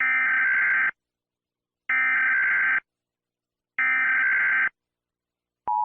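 Emergency Alert System SAME header: three harsh, buzzy digital data bursts, each about a second long with a second's gap between them. Near the end, the steady two-tone EAS attention signal begins.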